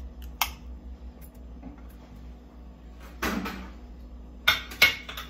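Knife and plate knocking and scraping against a stainless steel bowl as butter pieces are pushed off into biscuit crumbs: a sharp click about half a second in, a longer scrape a little past three seconds, and two sharp knocks near the end.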